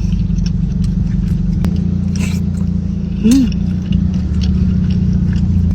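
Steady low engine rumble, with a short hummed 'mm' about three seconds in and light clicks of eating on top.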